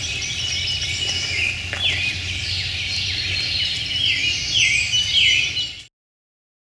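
Several wild birds calling and singing together, with a run of quick downward-slurred chirps repeated in the second half, over a low background rumble. The sound cuts off suddenly about six seconds in.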